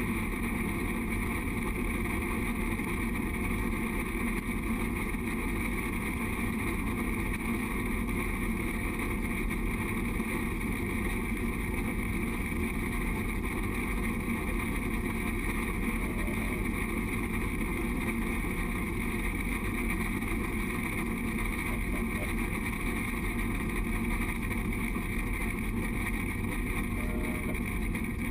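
Steady rushing noise from a moving narrow-gauge train, picked up by a camera on the front of the locomotive: wind over the microphone mixed with the train's running noise, even in level and with no distinct beat.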